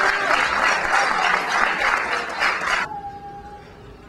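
Audience applauding, cutting off suddenly about three seconds in, then a short faint tone and quiet.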